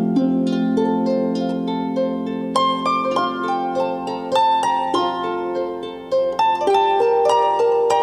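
Solo harp playing: a slow melody of plucked strings, each note ringing on over sustained low notes.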